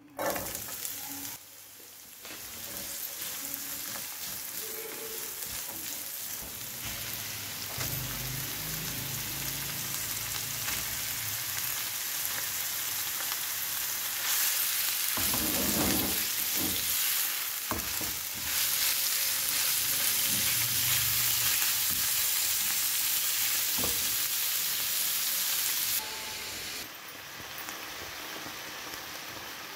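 Diced onion and raw chicken pieces sizzling in hot oil in a nonstick frying pan, stirred now and then with a silicone spatula. The sizzle starts suddenly as the onion goes into the oil, runs as a steady hiss, and is louder for a stretch in the second half.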